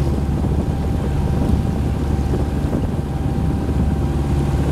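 Boat engine running steadily at a constant pitch, with wind noise on the microphone.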